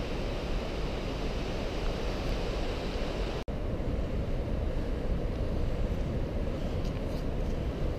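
Steady rushing noise, heaviest in the low end, of wind on a GoPro microphone mixed with running water in the gorge. The sound drops out for an instant at a cut about three and a half seconds in.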